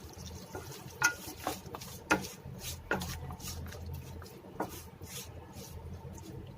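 A spoon stirring chicken in a heavy metal pot, with short scrapes and knocks against the pot about once a second, over a low steady hum.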